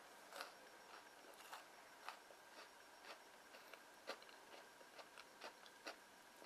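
Faint scattered crackles and small clicks of a crisp-crusted sata andagi, an Okinawan fried doughnut, being torn apart by hand, about two or three a second over a low hiss.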